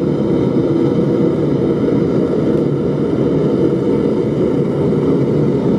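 Homemade blast furnace's gas burner running steadily at 10 pounds of pressure, a constant, unbroken rush of flame.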